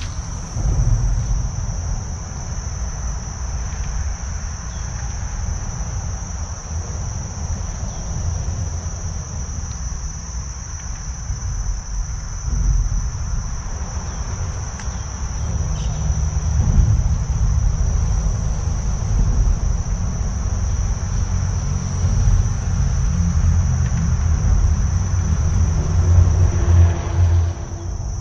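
Steady, high-pitched insect chorus holding one pitch throughout, over a continuous low rumble.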